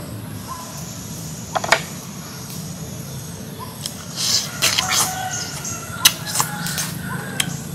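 A knife chops once into a pineapple on a wooden board, a sharp knock. From about four seconds in come wet biting and chewing noises of juicy pineapple, mixed with short clucking calls of a chicken.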